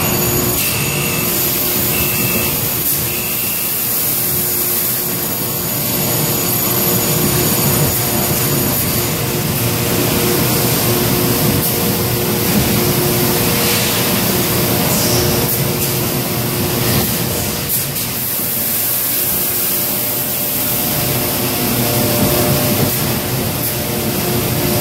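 Steady factory-floor machine noise around a robotic bottle palletizer: a constant loud hiss with a low hum underneath and a few faint clicks.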